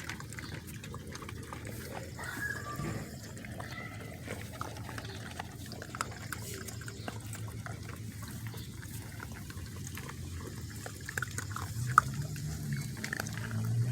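Australian Shepherd puppies making small squeaks and grunts among many soft wet clicks and mouth noises.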